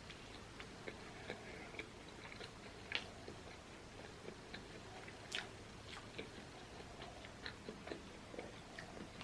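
Close-up mouth sounds of a person chewing food: soft, irregular wet clicks and smacks, with a couple of louder bites.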